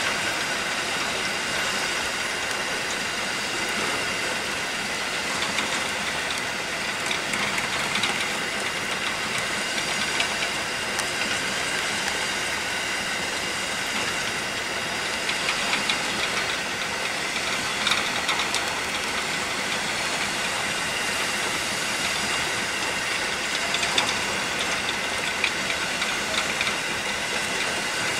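Grain hopper wagons of a freight train rolling past at close range: a steady noise of wheels on rail with a faint high ringing, and scattered sharp clicks and knocks as wheels pass over rail joints.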